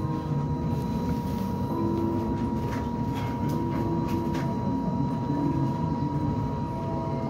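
Interior noise of a Wright StreetDeck Electroliner battery-electric double-decker bus on the move: a steady high whine over a low rumble, with scattered rattles and clicks from the body.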